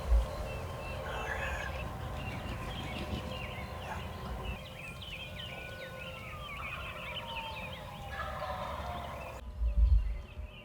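Wild turkey gobbling from the roost at first light, among many songbirds chirping. There is a low bump at the start and another just before the end.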